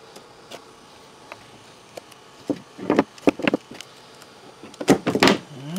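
Utility knife cutting and scraping through the fiberboard sheet wrapped around a lithium battery's cell pack: a few short scraping strokes about two and a half to three and a half seconds in, and a louder cluster about five seconds in.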